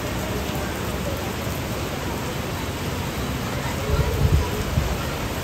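Heavy rain pouring steadily as an even hiss, with a brief burst of low rumbling about four seconds in.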